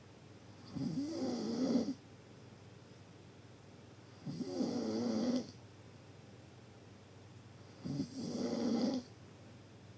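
Deep snoring: three long snores, each about a second, one every three and a half seconds or so.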